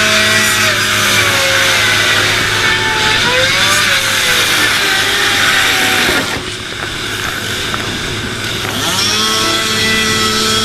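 An engine revving up, holding and dropping back down about three times, over a steady low hum.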